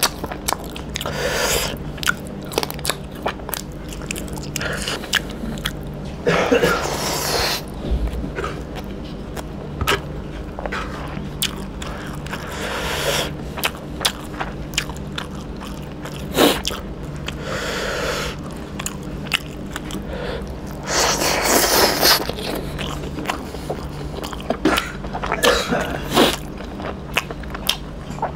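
A man chewing and biting fried chicken pieces and rice: wet mouth noises with many short clicks and smacks, in spells of a second or two.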